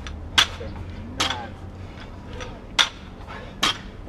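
Loaded barbells with bumper plates knocking on concrete during repeated power snatches, with a metallic clink from the bar and collars. There are four sharp knocks, each a second or so apart.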